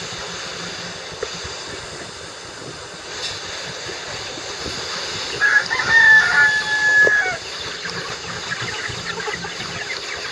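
A rooster crows once, about five and a half seconds in: a single crow of about two seconds with a long held, level middle note, over a steady hiss.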